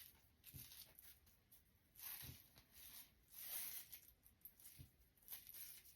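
Faint rustling and brushing of hair being handled and styled, in soft swishes, with a few soft low bumps.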